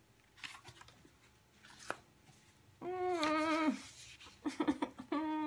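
A woman's high-pitched whine, held wavering for about a second and dropping at its end, then a few short whimpers and a second, shorter whine near the end. It comes after a couple of soft rustles of paper being handled.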